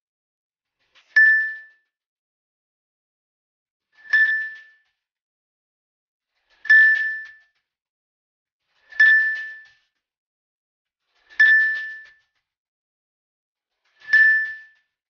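A short, bright ding sound effect, heard six times about two and a half seconds apart: each one a single clear tone with a sharp start that rings out in under a second, with silence between. It is the editing chime that marks each caption label popping up.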